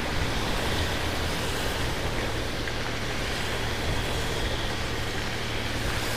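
Motorcycle riding at about 30 km/h on a wet road: a steady engine hum under an even rush of wind and tyres on the wet tarmac.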